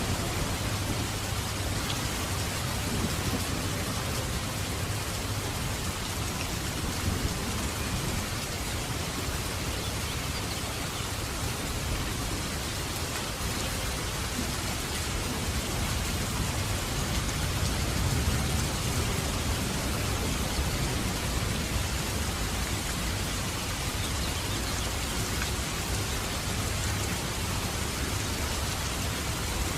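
Heavy rain falling steadily, a dense even hiss of drops, with a low rumble underneath that swells slightly just past the middle.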